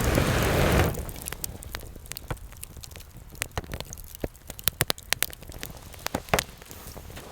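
Wood campfire crackling, with irregular sharp pops and snaps. A rushing noise fills the first second, then fades.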